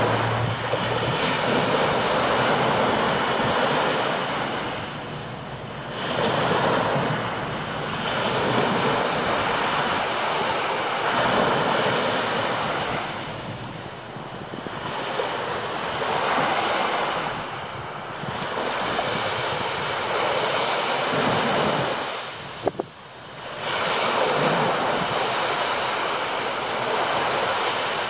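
Small sea waves breaking and washing up a sandy beach, the surf swelling and falling back about every four to five seconds. A single brief click comes about three-quarters of the way through.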